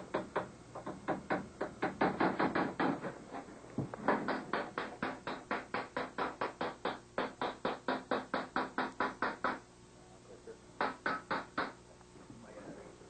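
A hammer striking steadily on a go-kart part, about three to four blows a second, with a short break about three seconds in. After a pause near the end, four more quick blows.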